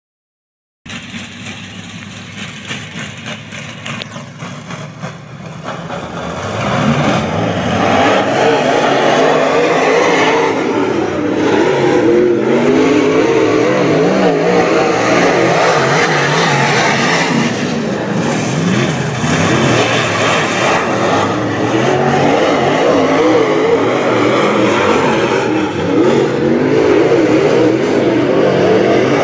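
A pack of dirt late model race cars running around a dirt oval, their V8 engines' pitch rising and falling as they rev through the turns. The sound starts a moment in at moderate level, grows much louder about six seconds in, and stays loud.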